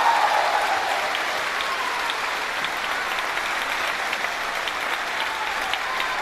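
Steady rush of flowing water in a rocky mountain stream.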